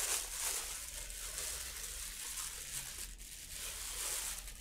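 Thin clear plastic bag crinkling and rustling steadily as hands unwrap a camera body from it.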